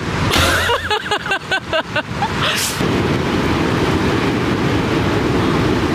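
Very strong, gusting wind buffeting the microphone with a heavy low rumble, which thickens into a steady roar about three seconds in.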